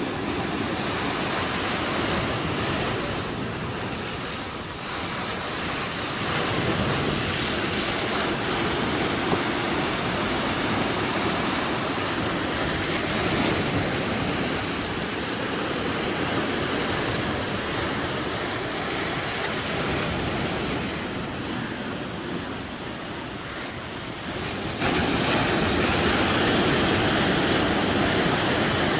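Sea surf breaking and washing over shoreline rocks: a continuous rush of water that turns louder about four seconds before the end.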